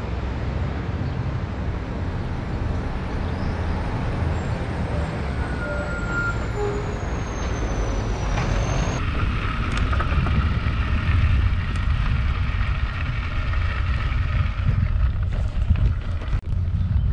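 Steady low rumble of wind on the microphone, mixed with road traffic noise, as while riding a bicycle through town. The sound changes abruptly about nine seconds in.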